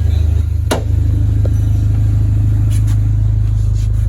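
Dodge Neon SRT-4's freshly rebuilt 2.4-litre turbocharged four-cylinder running at a steady, loud, even low drone, with two sharp clicks in the first second.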